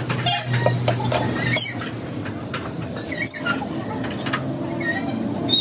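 Metal hand tools clinking, knocking and squeaking against a truck's wheel hub, with a steady low hum for the first second and a half.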